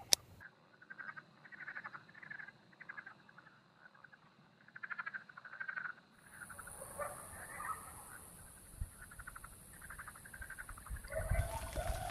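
Frogs calling at night: faint, short pulsed trills repeated about twice a second. About halfway in, a steady high hiss joins them.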